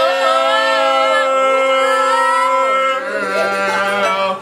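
Several voices singing a long held chord in harmony over a string band of fiddle, guitars and upright bass; the notes are held for about three seconds, then thin out.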